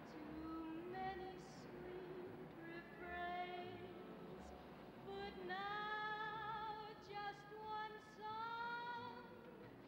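Music with a high singing voice holding long notes with a wavering vibrato.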